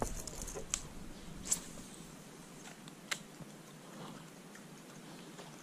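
Faint background hiss with a few short sharp clicks, the clearest about a second and a half in and another about three seconds in.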